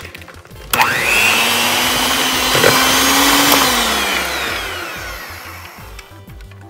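Electric hand mixer switched on about a second in, its motor whining as the beaters churn through crumbly oatmeal cookie dough in a plastic bowl. After a few seconds it is switched off and spins down, trailing off near the end.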